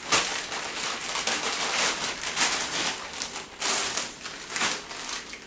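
Plastic shopping bag and instant-noodle packets rustling and crinkling as the packets are pulled out of the bag, in irregular scrunches.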